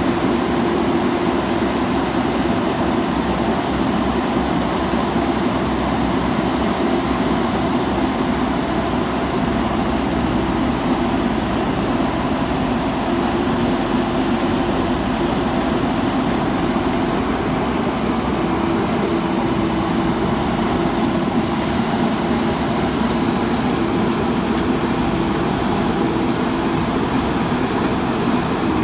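Diesel engine of a JCB backhoe loader running steadily, a constant hum with no clear revving.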